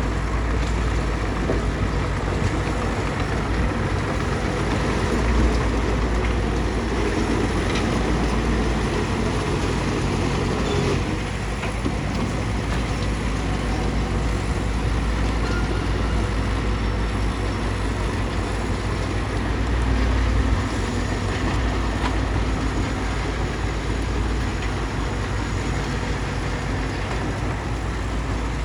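Bulldozer's diesel engine running steadily under work, with brief swells in level about five and twenty seconds in.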